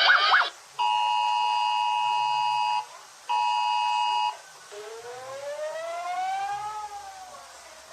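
Emergency Alert System attention signal, the steady two-note 853 Hz and 960 Hz tone. It sounds twice, a long blast and then a shorter one, just after a fast warbling alarm tone cuts off. A siren wail then rises slowly in pitch and falls away again.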